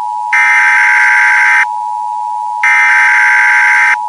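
Emergency Alert System-style alarm: a steady attention tone runs throughout while a harsh buzzer blares over it twice, each blast about a second and a half long.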